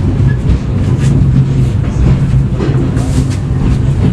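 Diesel train locomotive engine running steadily with a low drone.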